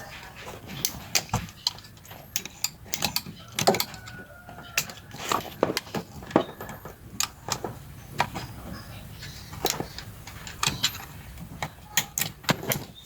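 Irregular clicks, knocks and rattles of plastic trim and metal parts being handled while a car's seatbelt assembly is taken apart.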